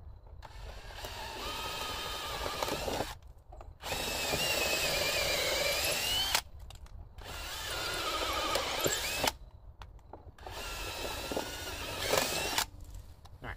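Cordless drill with a twist bit boring holes through house siding, in four separate runs of about two to three seconds each. Its motor whine sags and recovers as the bit bites.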